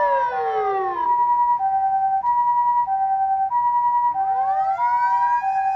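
Japanese ambulance two-tone "pee-poh" siren, alternating a high and a low tone about every 0.6 seconds, together with a fire engine's wailing siren that falls away in the first second and rises again from about four seconds in: emergency vehicle sirens being tested during a morning vehicle inspection.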